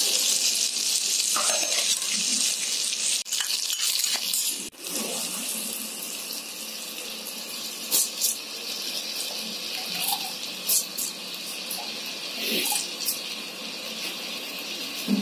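Vegetables sizzling in hot oil in a Geek Robocook electric pressure cooker's pot on sauté, a steady high hiss. The sizzle drops sharply about five seconds in and goes on more quietly, with a few light ticks as raw rice is dropped onto the vegetables.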